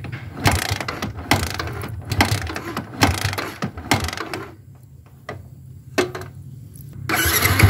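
A Yamaha V-ixion's 150 cc single-cylinder engine is kicked over with the kick-starter, about five clattering, ratcheting strokes roughly once a second, to spread fresh oil through the engine after an oil change. Near the end the engine starts and runs.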